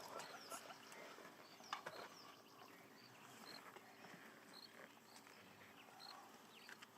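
Faint outdoor ambience of small birds chirping: scattered short, high, falling chirps, with one short high note repeating about every half second.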